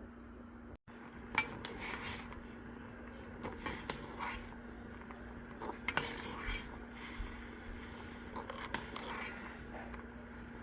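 Irregular clicks and scrapes of a utensil against a cooking pot, over a steady low hum.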